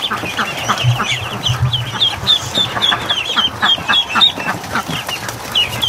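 A crowd of ducklings peeping: many short, high chirps overlapping, several a second, without a break.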